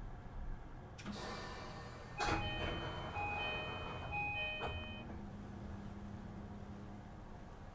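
Door chime of a JR East E235 series train, an electronic chime sounding three times in a row. A knock from the sliding passenger doors comes as it starts and another as it ends. Afterwards the stopped train gives off a low steady hum.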